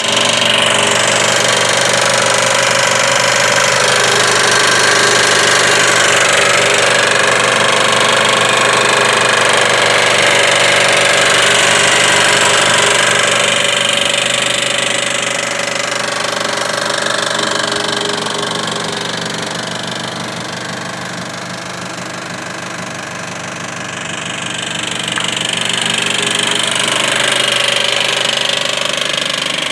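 Fourth-generation Mitsubishi Eclipse engine running with a rapid knocking, the sign of a failing timing belt tensioner. The sound is quieter through the middle stretch, then louder again near the end.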